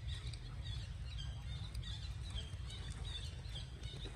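A string of short high chirps, several a second, over a steady low rumble.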